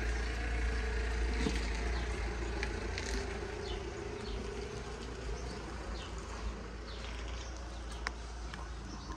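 A steady buzzing drone with a few overtones, strongest at first and slowly fading, over a low rumble, with short high chirps scattered through it.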